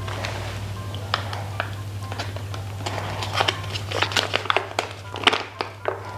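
Plastic and foil food sachets crinkling and crackling in the hands as one pouch is squeezed out and another foil pouch is handled, the crackles growing denser past the middle. Soft background music plays underneath.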